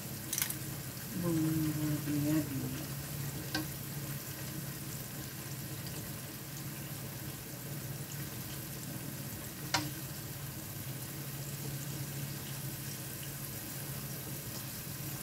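Flour-battered chicken pieces deep-frying in hot oil in a wok, a steady sizzle, in the first of two fryings. A few sharp clicks of metal tongs against the wok come through it, one sharp click about ten seconds in.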